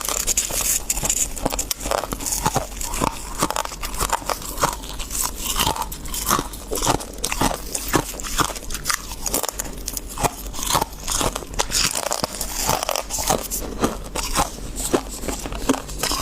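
Close-up crunching of freezer frost being bitten and chewed, a dense run of irregular squeaky crunches that go on without a break.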